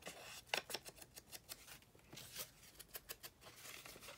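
Faint rustling and a run of short, crisp clicks and taps as pieces of patterned paper are handled and laid down on a tabletop.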